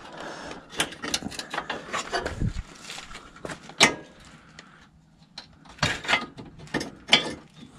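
Scattered clicks and knocks of a Toyota AE86 front bumper lip being handled and pressed into place on the bumper, with a few sharper knocks in the second half.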